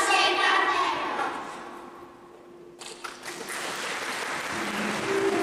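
A children's group song dies away over the first second or so. After a short lull, applause breaks out suddenly about three seconds in and keeps going.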